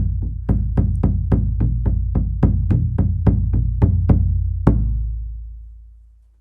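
Drum beating a steady, quick beat of about three to four strokes a second over a low sustained tone. The beat stops with a last stroke near the end, and the low tone fades away, closing the piece.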